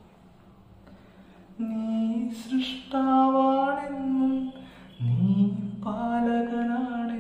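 A man singing unaccompanied, in long held notes with slow bends in pitch. The singing comes in after a quiet breath of about a second and a half, and about five seconds in he drops to a lower note that slides back up.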